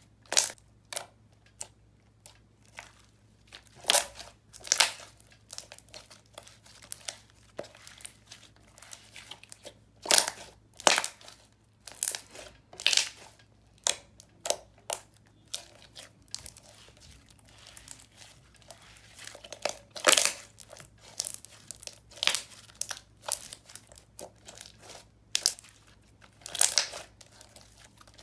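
Clear slime squished, stretched and folded by hand, giving irregular sharp sticky pops and crackles as trapped air bubbles burst.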